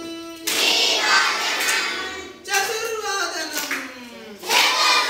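A group of schoolchildren singing a Sanskrit song in unison, phrase by phrase, with each loud phrase starting about every two seconds.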